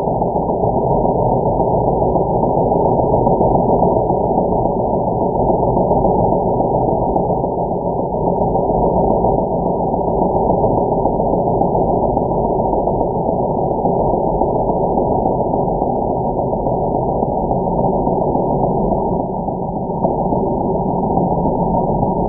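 Jigsaw cutting through a wooden board, heard slowed down with the slow-motion footage as a steady, muffled low drone that dips briefly near the end.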